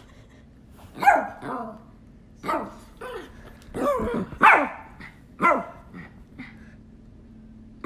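A dog barking: about six separate barks spread out roughly a second apart, each dropping in pitch.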